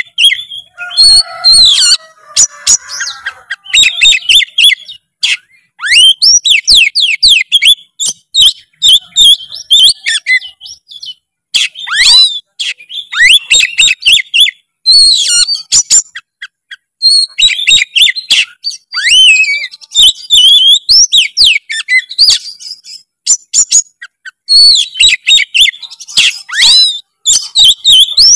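Oriental magpie-robin (kacer) singing a long, varied song full of mimicked phrases, in quick runs of rising and falling chirps and whistles broken by short pauses.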